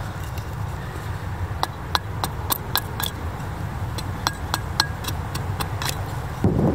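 A small carving axe chopping into a block of red oak in quick, light strokes, about a dozen sharp knocks in two bursts, some with a brief ring from the steel, as the block is trimmed into a wedge. A louder, duller noise comes in near the end.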